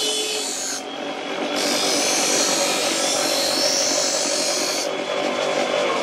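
Steel blade held against a spinning electric grinding wheel, being sharpened: a high grinding rasp in passes that break off briefly about a second in and again near the end, over the steady hum of the wheel's motor.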